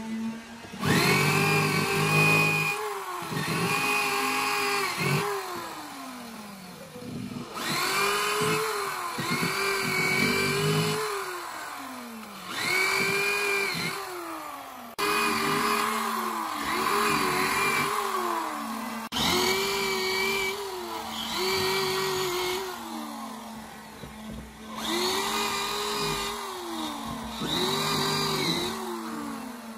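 A handheld power tool's motor switched on in short bursts: about a dozen times it whines up to speed, runs for a second or so, then winds down in pitch as it is released. A steady low hum runs underneath.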